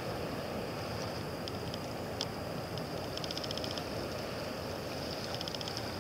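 Steady outdoor rumble and hiss, with two short bursts of rapid high ticking about three and five seconds in.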